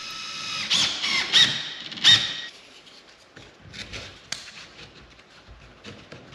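Cordless drill driver driving a screw into the door frame's side part: a motor whine that rises in three short trigger pulls, then stops about two and a half seconds in. After it come light clicks and handling noises.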